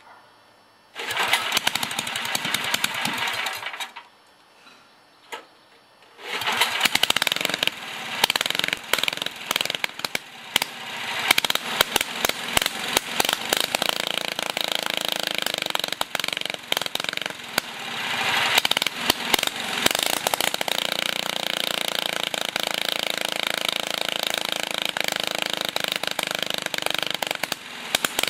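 The warm engine of a 1964 Sears Custom 600 garden tractor being started: a first attempt about a second in turns it over for about three seconds and stops. About six seconds in it catches and keeps running with a rapid, even popping beat.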